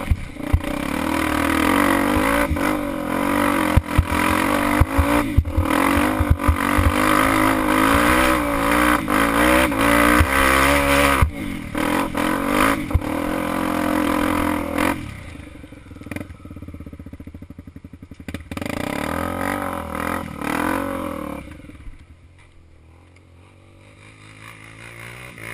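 Trail motorcycle engine revving up and down, with sharp knocks and rattles from the bike over rough ground. About fifteen seconds in, the engine drops back and runs much quieter and lower to the end.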